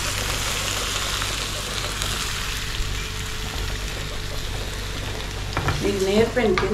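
Marinated prawns and onion-ginger-garlic paste sizzling steadily in hot oil in a non-stick pan while a steel spoon stirs them, with a few sharp clicks near the end.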